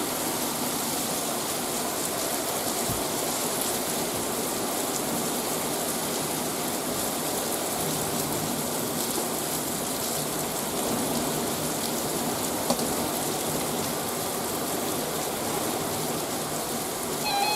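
Heavy rain falling steadily during a thunderstorm, an even hiss with no let-up.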